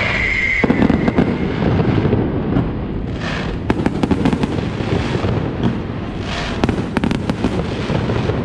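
Fireworks going off: a falling whistle that ends within the first second, then a fast run of sharp bangs and crackling pops from bursting shells.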